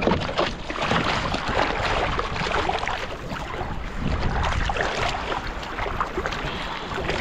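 Hands paddling a surfboard through shallow water: repeated splashing and sloshing strokes over a steady wash of water.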